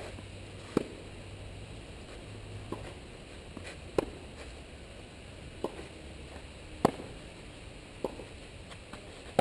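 Tennis ball struck by rackets in a rally on a clay court: sharp pocks every second or two, three of them loud, with softer knocks in between.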